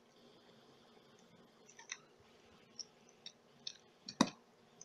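About five small, sparse clicks of the plastic parts of an HO scale model locomotive being handled and worked apart by hand, the loudest near the end.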